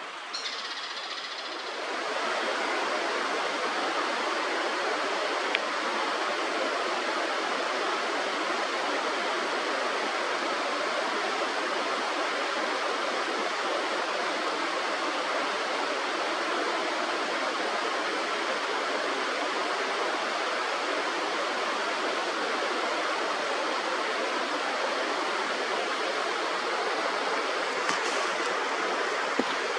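Steady rush of flowing river water, stepping up in level about two seconds in. A short high-pitched sound comes just at the start.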